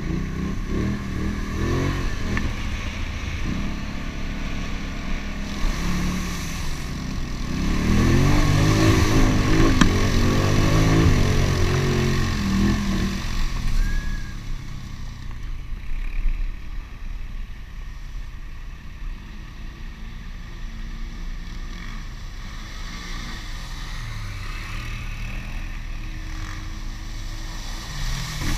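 ATV engines running as quads ride a trail, with the engine revving up and down and at its loudest from about 8 to 13 seconds in, then settling to a lower, steadier run.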